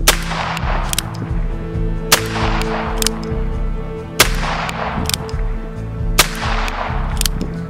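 Ruger Wrangler .22 LR single-action revolver fired four times, about two seconds apart, each sharp crack followed by a short echo. Background music plays underneath.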